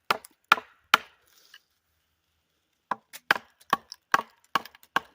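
Wooden mallet knocking a knife or wooden wedge into a beech log to split it. Three sharp strikes, a pause of about a second and a half, then a quicker run of strikes, roughly two or three a second.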